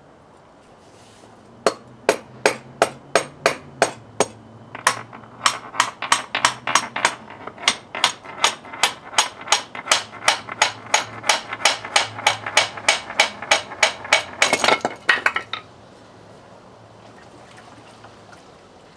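Hand hammer striking repeatedly under the motorcycle, sharp blows at about three a second. A quick flurry of faster, louder blows comes just before they stop, a few seconds before the end.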